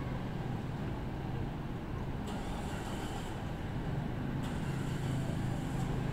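Steady low rumble of a moving vehicle, with a faint hiss coming in twice in the second half.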